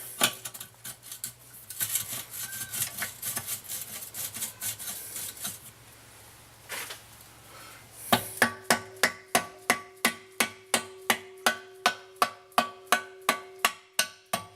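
Metal parts scraping and clicking as a needle bearing is set into a Honda TRX300EX swing arm pivot. About eight seconds in, a hammer starts tapping it in with steady blows about three a second, each ringing metallically.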